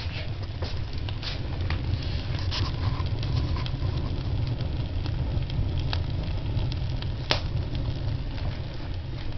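Fire burning in a brick stove with its damper open: a steady low rumble with scattered crackles, and one sharp crack a little past seven seconds in.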